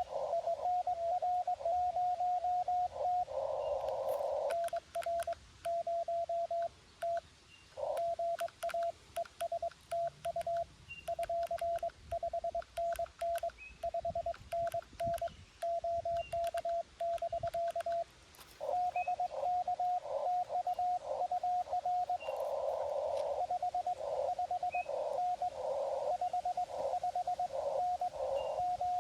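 Morse code (CW) from a Xiegu G90 ham transceiver during a contact: a single steady mid-pitched tone keyed on and off in dots and dashes. In some stretches the tone comes through wider and hissier, and it pauses briefly about a quarter and two-thirds of the way in.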